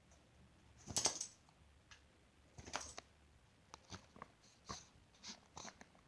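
A dog sneezing, two short sharp sneezes about two seconds apart, followed by a few small snuffles and clicks.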